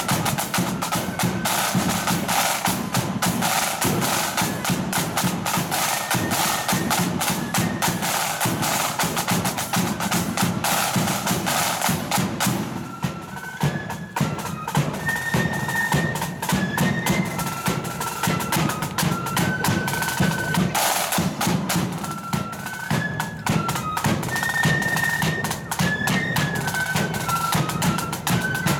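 Marching flute band playing: massed snare drums rattling and bass drum beating under a high flute melody. The drumming eases for a moment about halfway through, then comes back in full.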